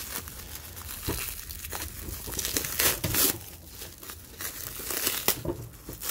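Clear plastic packaging crinkling and rustling irregularly as hands pull it off a foam seat pad.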